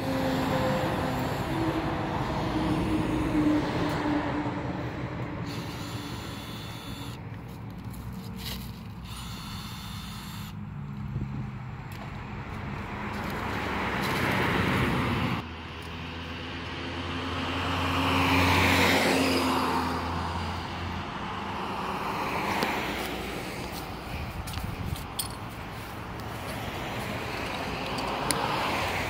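Road traffic passing: cars and trucks driving by one after another, each swelling and fading, with a steady engine hum in the first few seconds.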